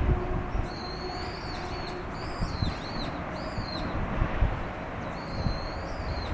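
A bird giving a series of short, high calls that arch up and down in pitch, with a pause of about a second in the middle, over a steady low outdoor rumble.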